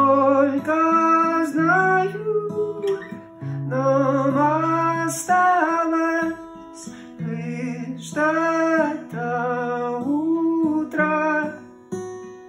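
A man singing a slow lullaby in long held phrases over a plucked acoustic guitar, with short breaks between phrases.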